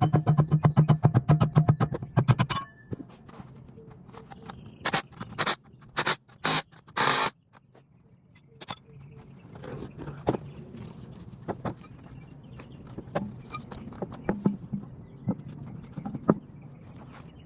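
Brake-job tool sounds. A rapid mechanical rattle lasts about two and a half seconds, then come five short hissing bursts, then scattered light metal clinks and scrapes of tools and parts.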